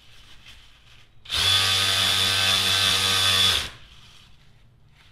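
Snap-on 14.4 V brushless cordless electric ratchet running unloaded after fresh grease, a steady motor whir that starts about a second in and stops after about two and a half seconds.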